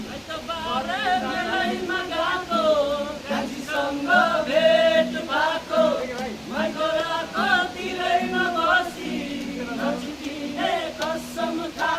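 Several voices singing a song together, with melodic lines overlapping throughout.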